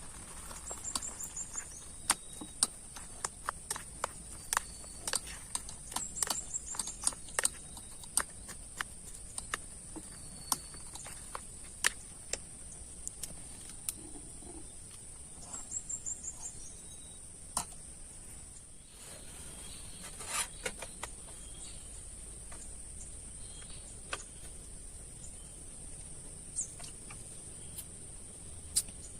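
A steady high-pitched drone of night insects, with irregular sharp taps of water dripping onto the tent, loudest and most frequent in the first half.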